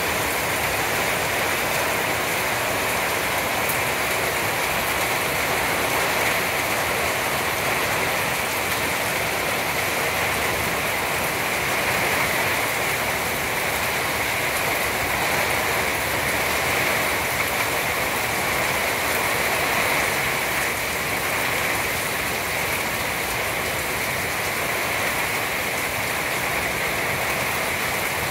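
Heavy rain pouring steadily onto the trees and a wooden deck, a dense, even hiss.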